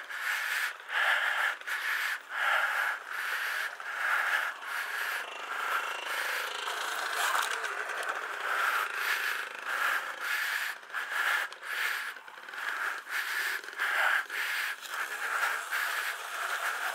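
Sur-Ron Light Bee electric dirt bike ridden over rough dirt: a steady high whine from the motor and chain drive, broken by frequent short knocks and scrapes.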